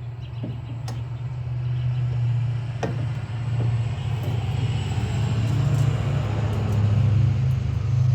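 A motor vehicle's engine rumbling steadily at a low pitch, growing gradually louder, with a few faint clicks.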